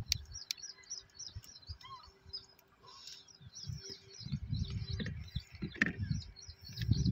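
Small birds chirping in a constant chatter of short, high chirps. Low rumbling noise swells in and out from about four seconds in.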